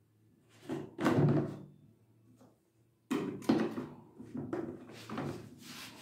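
Indesit washing machine's plastic detergent drawer being pushed shut, a short slide ending in a knock about a second in, followed from about three seconds on by several more sharp knocks.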